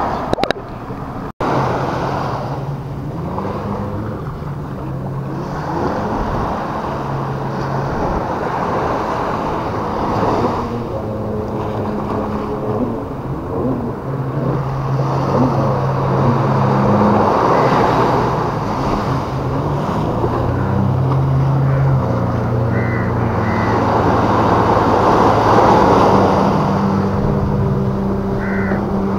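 Sea waves washing against a rocky beach, swelling every several seconds, with wind on the microphone and the steady drone of a boat engine that shifts up and down in pitch.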